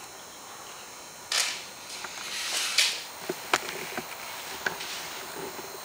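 Handling noise from a vinyl top being positioned on a car roof: two short rustling swishes of the sheet, then several sharp clicks.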